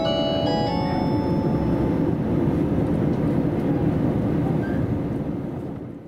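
The last notes of the onboard chime that closes a conductor's live announcement on terminal arrival end about a second in. Under it, the low rumble of the KiHa 281 series diesel train running, heard inside the passenger cabin, continues and fades away near the end.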